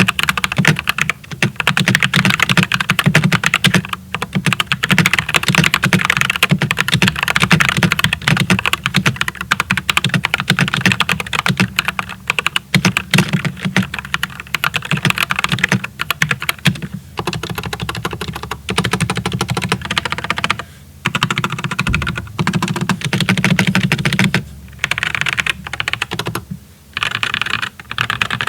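Fast, continuous typing on a GMMK 2 96% mechanical keyboard fitted with Glorious Mako tactile switches, with dense key clicks and a few short pauses in the last few seconds.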